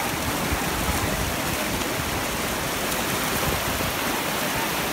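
Small waves breaking and shallow surf washing over the beach: a steady, even hiss.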